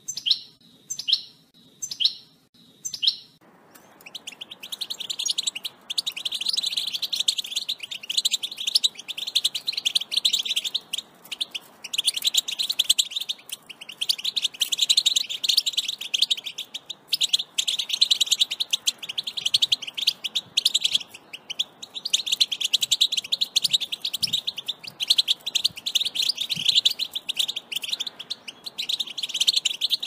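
European goldfinch singing: a few falling call notes about a second apart, then a long, fast, tinkling twitter that runs on with only brief pauses.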